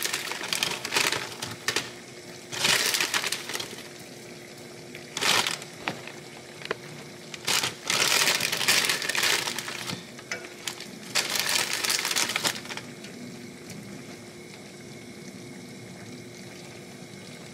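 A plastic bag of frozen broccoli crinkling in about six separate bursts as it is handled and florets are pulled out. A faint steady hum runs underneath.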